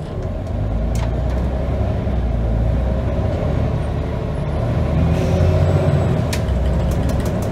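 Scania N94UD double-decker bus's diesel engine heard from inside the passenger saloon, pulling hard in a ZF Ecomat automatic kickdown, with the engine's pitch climbing about five seconds in. A few sharp clicks of body rattle sound over it.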